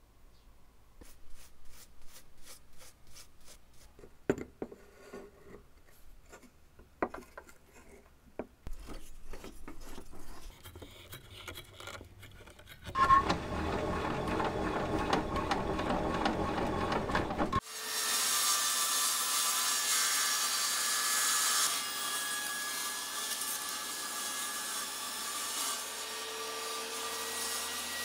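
Faint clicks and taps of handling, then a table saw switches on sharply about 13 seconds in and runs steadily. A few seconds later the sound turns brighter and higher as the blade rips through an oak board, and the cut carries on to the end.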